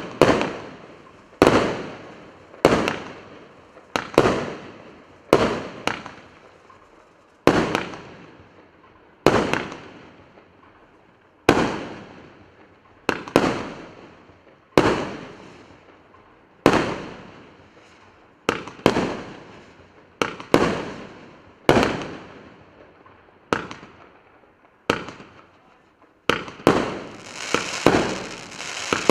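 A 78-shot firework cake with 25 mm and 30 mm shots firing: a string of sharp bangs, one every second or two, each trailing off with echo, turning into a denser hissing crackle near the end.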